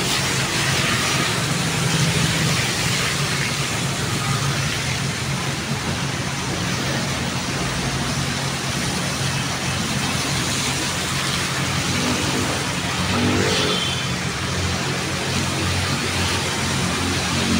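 City road traffic: steady noise of passing cars with a low engine hum underneath.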